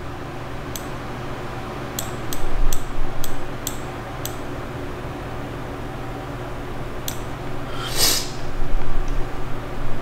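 Light, scattered clicks at a computer desk, about eight of them spread over the first seven seconds, over a steady low hum. A short breathy rush of noise comes about eight seconds in.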